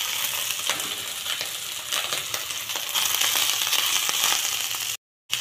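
Hot oil and ghee sizzling in a kadai around fried cumin seeds, bay leaves and dried chilli as par-boiled basmati rice is layered in on top, with scattered light crackles. The sound cuts out briefly near the end.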